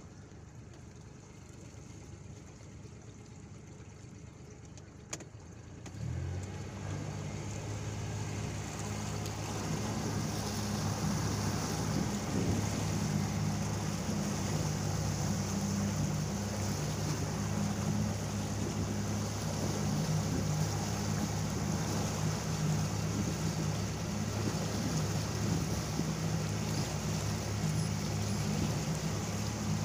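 A boat's motor starts suddenly about six seconds in, just after a single click, and then runs steadily, with rushing wind and water noise building as the boat gets under way.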